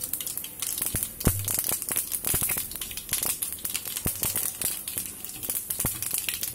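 Mustard and cumin seeds frying in hot oil in a pan: a steady high sizzle with many small, quick crackling pops as the seeds splutter.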